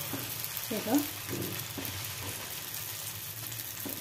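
Dosa batter sizzling on a hot cast-iron tawa as a steel ladle spreads it, with a brief louder, pitched sound about a second in.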